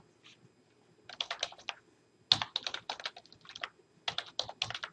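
Typing on a computer keyboard: quick runs of keystrokes in three bursts with short pauses between them.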